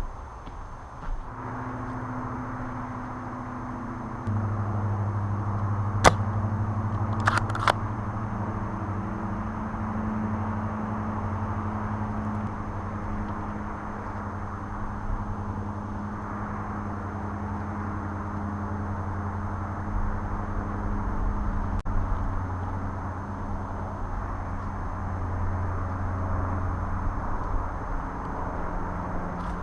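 An engine running steadily, its hum stepping up about four seconds in, with a sharp click about six seconds in and two quicker clicks a second later.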